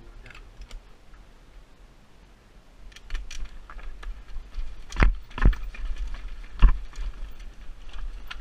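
Mountain bike riding down a rocky trail, its tyres and frame rattling over stones. It gets louder after about three seconds, with a few hard knocks as the wheels strike rocks past the middle.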